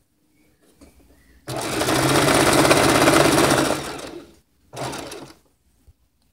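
Domestic electric sewing machine running a straight stitch as lace trim is sewn onto fabric. It starts about a second and a half in, runs for about three seconds and dies away, then gives one short second burst.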